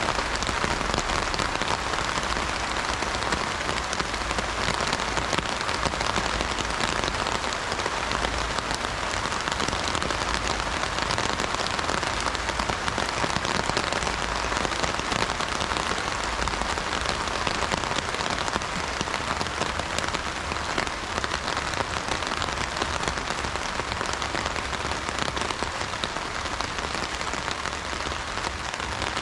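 Steady heavy rain drumming on an umbrella canopy, a dense, even patter of drops.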